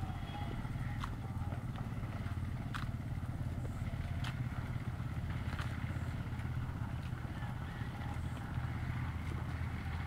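A steady low engine drone, with a few sharp clicks over it.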